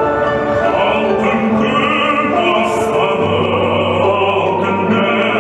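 A national anthem playing: orchestral music with a choir singing, a low held note entering about three seconds in.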